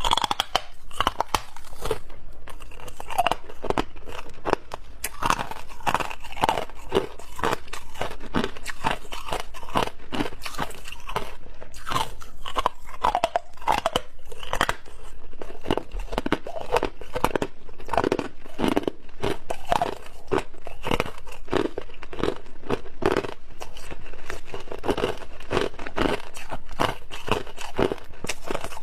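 Clear ice chunks being bitten and chewed close to the microphone: a dense, irregular run of sharp crunches and cracks.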